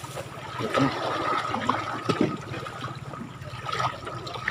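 Hands kneading wet carp bait dough, a mix of animal feed and flour, in a plastic tub: irregular wet squishing and mixing sounds.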